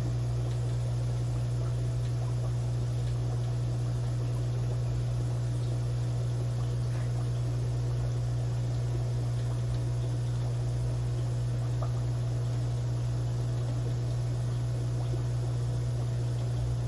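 Aquarium equipment humming steadily: a low, even hum with a faint hiss over it.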